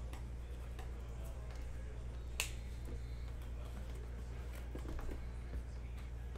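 Sealed trading-card boxes handled and set down on a table: one sharp click about two and a half seconds in and a few softer knocks, over a steady low hum.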